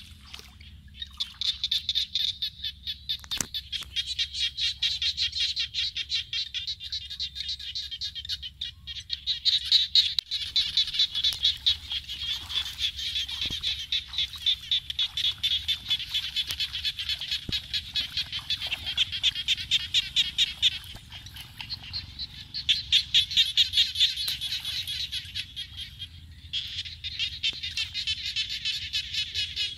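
Dense chorus of small animals calling in rapid, evenly spaced high-pitched pulses, dropping away in two short lulls in the second half.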